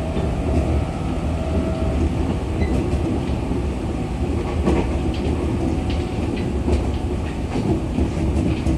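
Running noise inside a JR 211 series electric train car in motion: a steady rumble of wheels on rail, with occasional sharp clacks, more of them in the second half.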